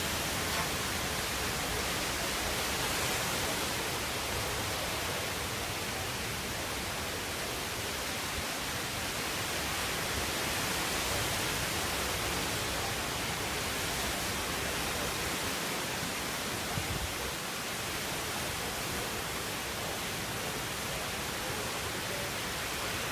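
Wind and heavy rain of a category 2 tropical cyclone: a steady, unbroken rushing noise with no letup.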